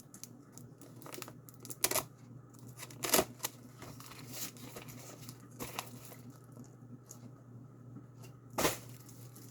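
Mail package being torn open by hand: a few short rips and crinkles of packaging, spaced a few seconds apart, the loudest near the end, over a low steady hum.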